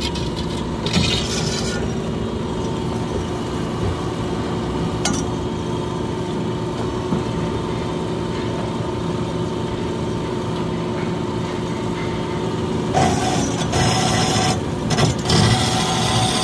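Cosen AH-250H horizontal metal-cutting bandsaw running in automatic mode, its blade sawing through stock with a steady mechanical hum. A brighter hiss fades about two seconds in and comes back near the end.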